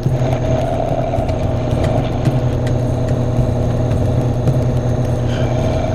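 1980 Powermatic Model 95 scroll saw running steadily, its blade cutting a small piece of wood.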